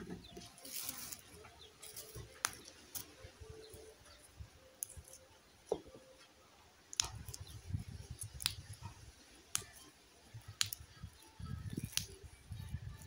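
Fresh green beans being trimmed by hand: a series of short, crisp snaps, one every second or so, with a low rumble under the second half.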